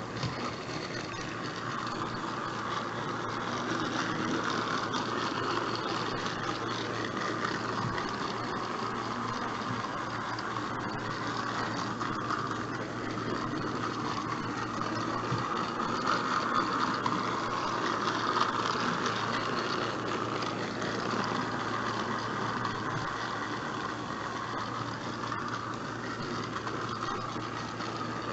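Battery-powered Trackmaster Salty toy engine running along plastic track: a steady small-motor whirr with gear rattle that swells and fades slowly.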